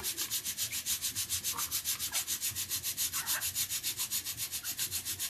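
A steady rhythmic swishing noise, about seven or eight pulses a second, with a few faint soft knocks as diced raw potato pieces are handled in a steel bowl.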